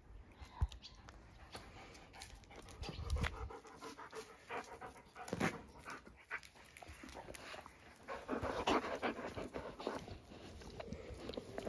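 A dog panting close by in quick, even breaths, starting about eight seconds in and growing louder. Before that, scattered light clicks and scuffs.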